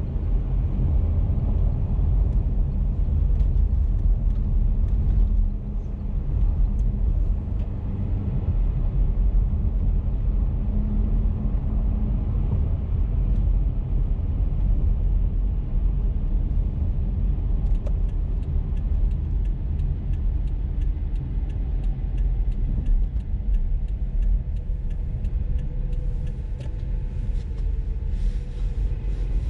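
Car driving along a highway, a steady low rumble of engine and tyres on the road. In the second half a light, regular ticking joins in.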